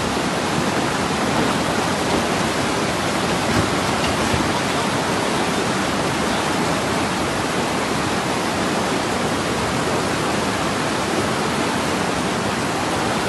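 Floodwater from an overflowing river rushing past in a steady, loud wash of noise.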